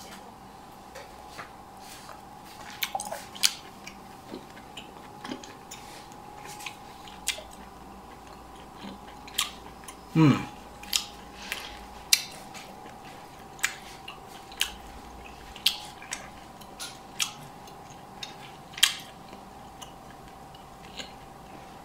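A person chewing a mouthful of pan-seared beef short rib, with irregular sharp mouth clicks about once a second. About halfway through comes a brief low sound that falls in pitch, and a faint steady hum runs underneath.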